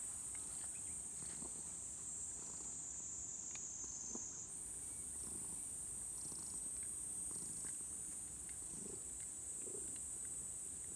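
A calico cat purring low and steady while a slicker brush strokes through its fur. A steady high-pitched insect chorus is the loudest sound, stepping slightly higher about four and a half seconds in.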